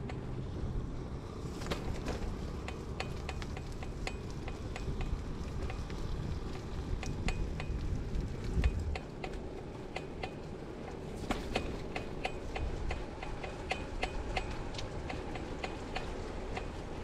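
A run of light metallic ticks at uneven spacing, often two or three a second, over a steady low rumble.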